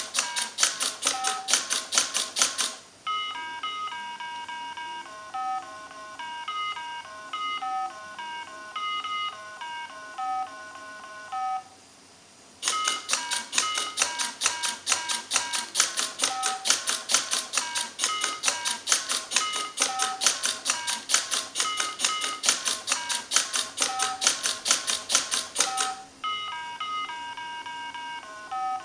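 Mini Simon electronic memory game beeping out a sequence of short notes in a few different pitches, then the robot's mechanism clicking rapidly, several clicks a second, as it presses the buttons back, with the game beeping each note under the clicks. The beeps play from about 3 to 12 s and start again near the end; the clicking runs at the start and from about 13 to 26 s.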